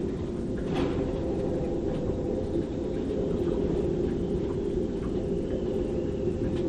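Storm-force wind in a moored sailboat's rigging: a steady low roar with a moaning tone, a faint high whistle in the middle, and a few small knocks and taps.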